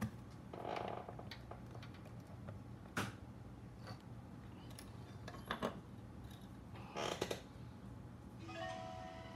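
Scattered light taps and clicks of a small circuit board and a soldering iron being handled on a silicone bench mat, over a steady low hum. Near the end a faint held tone with several pitches sounds for about a second.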